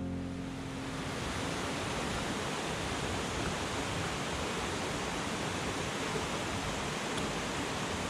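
Steady rush of a mountain stream: an even, unbroken hiss of flowing water.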